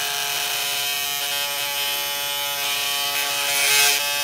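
Powered oscillating bone saw running with a steady whine as it cuts across the humeral head along the marked osteotomy line, louder for a moment near the end.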